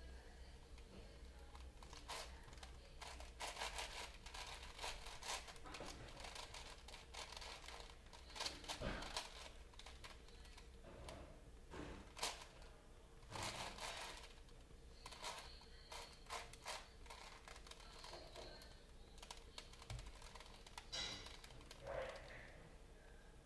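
Plastic multi-layer puzzle cube being turned by hand: faint, irregular clicking and clacking of its layers in quick runs with short pauses between.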